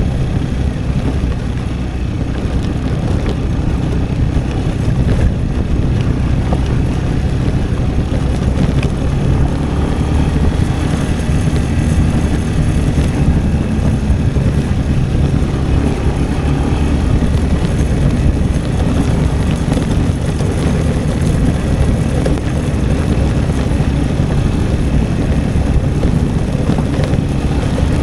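Italika V200 motorcycle riding along, its engine running steadily under a heavy, even rush of wind on the microphone.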